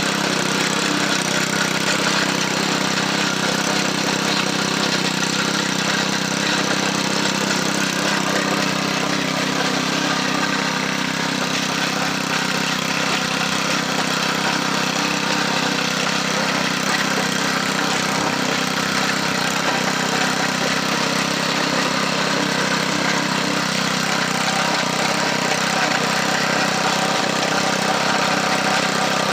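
Garden tiller's small gasoline engine running steadily as it tills soil, a constant drone.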